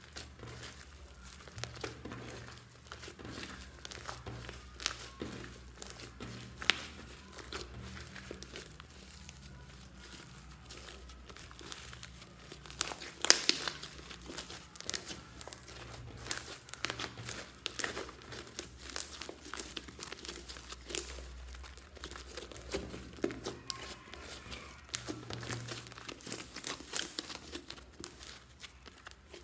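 Hands kneading and squeezing a mass of white foamy slime, giving an irregular run of sticky crackles and small pops as it is folded and pulled apart. A louder snap comes about thirteen seconds in.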